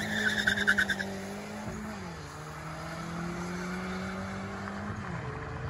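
Audi TT accelerating away down a drag strip: a tyre squeal dies out in the first second, then the engine note fades into the distance, its pitch stepping down at two upshifts, about two seconds in and again near the end.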